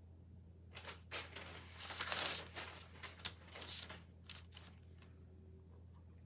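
Soft rustling and brushing of hands moving over kraft paper on a craft table: a handful of short scrapes and swishes, the longest about two seconds in, over a steady low hum.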